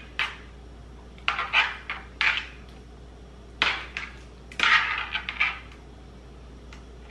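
Catfish fillets being lifted, turned and pressed into a cornmeal coating on a plastic tray: about five short scraping, rustling bursts, each under a second, with a faint steady hum underneath.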